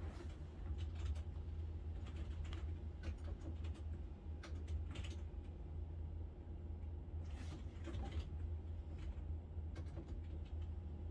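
Faint room tone: a steady low hum with scattered soft clicks and a few brief rustles.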